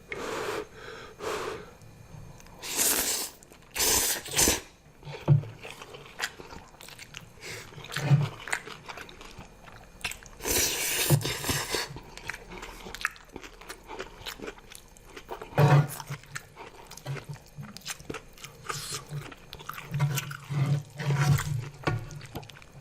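Close-miked chewing and mouth noises of a person eating spicy zucchini noodles and chicken, with a few louder drawn-out noisy bursts. Short low hums are scattered through the last several seconds.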